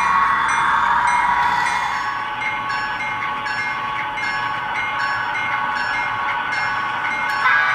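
Diesel locomotive sounds from an HO-scale model train: the engine running with a horn-like chord, strongest for the first two seconds and again near the end, quieter in between.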